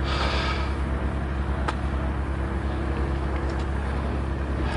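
A fishing boat's engine drones steadily, heard from inside the cabin. A short rustle comes at the start and a single sharp click a little under two seconds in.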